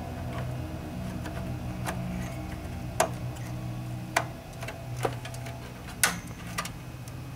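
Sharp clicks and taps at irregular spacing, about one a second, from a DDR2 RAM module being pushed into a motherboard DIMM slot and its retention clips locking. A steady low hum runs underneath.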